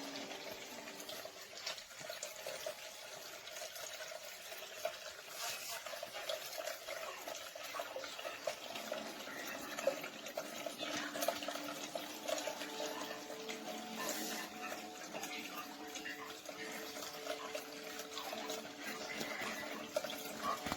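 Water trickling and splashing steadily down a small cascade fountain.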